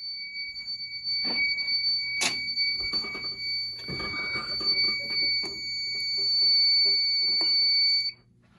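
Fire alarm sounding a steady, unbroken high-pitched electronic tone that cuts off abruptly about eight seconds in, with scattered clicks and knocks over it. The owner puts the sudden stop down to the alarm panel acting up.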